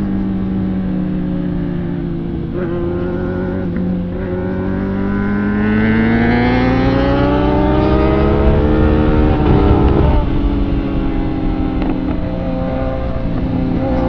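Sport motorcycle engine under acceleration. Its pitch climbs steadily for about five seconds from a third of the way in, then drops sharply at a gear change, and it runs on steadily after. Wind noise buffets the microphone underneath.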